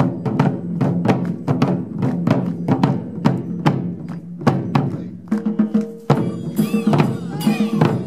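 Japanese taiko drumming: rope-laced okedo-daiko drums beaten with bachi sticks in a fast, driving rhythm of several strokes a second. The strokes thin out briefly about five seconds in, then resume with a loud accented hit.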